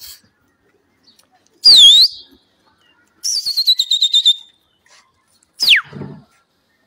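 A pigeon keeper whistling loudly to his flock in flight: a dipping whistle about two seconds in, then a fast warbling trill falling in pitch, then one whistle sliding steeply down near the end.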